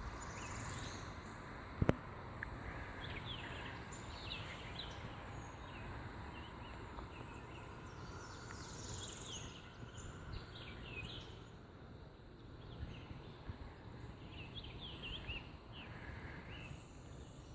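Morning birdsong: many short chirps and whistles from several birds, over a steady low hiss of outdoor noise, with one sharp click about two seconds in.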